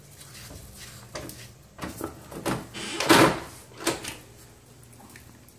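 An interior door being knocked about and pushed open: a run of thumps and scrapes, the loudest a longer scraping sweep about three seconds in.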